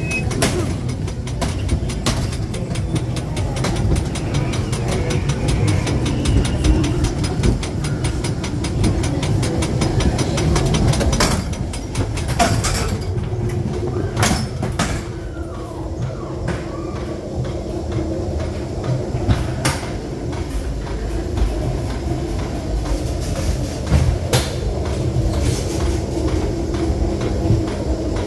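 Ghost train car running along its track: a steady low rumble with sharp knocks and clatters every few seconds, and a steady hum that comes in about halfway through.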